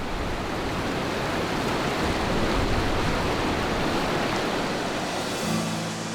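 Rushing river water, a steady, dense rush that swells in at the start. Low sustained music tones come in near the end.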